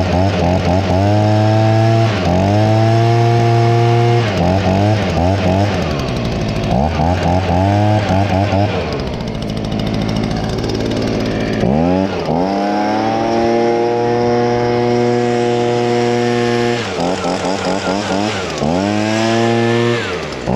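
A Stihl BG55 handheld leaf blower's two-stroke engine running, revved up and let back down to idle again and again, with the longest high-speed run held about five seconds in the second half.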